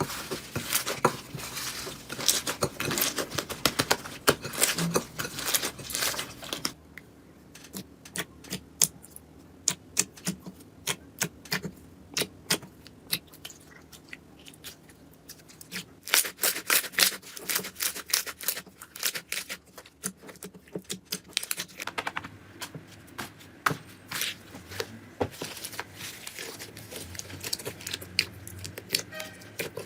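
Irregular run of short clicks and taps, dense for the first seven seconds or so, then sparser in scattered clusters.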